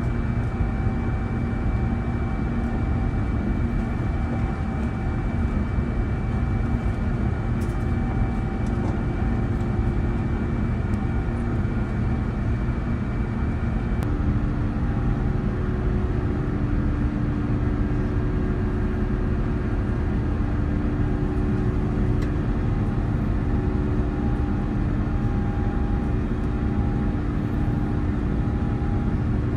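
Airliner cabin noise during the climb after takeoff: a steady rush of airflow and the drone of the Airbus A350's Rolls-Royce Trent XWB engines heard from inside the cabin. About halfway through, a steady hum in the noise shifts in pitch and a higher whine drops out.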